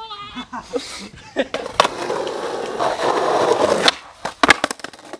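Skateboard wheels rolling on rough asphalt for about two seconds, after a few knocks as the rider gets going. The rolling ends in the sharp pop of the tail, and about half a second later a quick cluster of clacks comes as the board and trucks hit the street.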